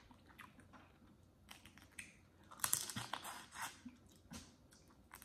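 Close-miked eating sounds: chewing, and the crackle of boiled crawfish shells being twisted and peeled apart by hand. Scattered clicks, with a denser burst of crackling just past the middle.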